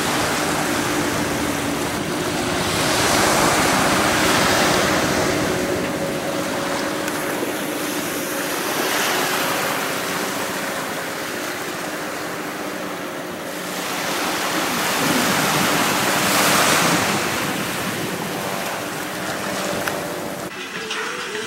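Small waves breaking and washing onto a sandy beach, the surf swelling and easing every few seconds, with wind buffeting the microphone and a faint steady hum underneath.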